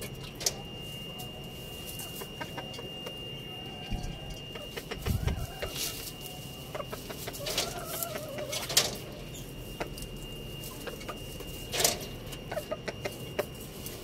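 Chickens clucking in short low calls, with scattered sharp clicks and rustles from the birds moving about; the loudest clicks come about 9 and 12 seconds in. A thin steady high tone runs underneath for most of the time.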